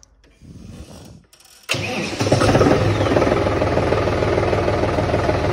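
John Deere tractor's diesel engine being cold-started: a short crank, then the engine catches about two seconds in and settles into a steady, rhythmic idle.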